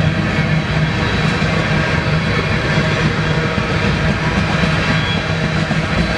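BNSF freight train running past, a loud steady rolling noise with a low drone underneath.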